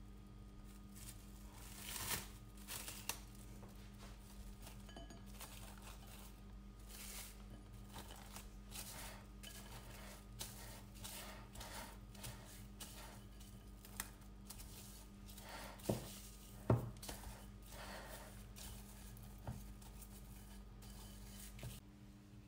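Bread dough being kneaded by hand in a glass bowl to work in butter: irregular sticky tearing and squishing noises, with two sharp knocks about two-thirds of the way through. A low steady hum sits underneath.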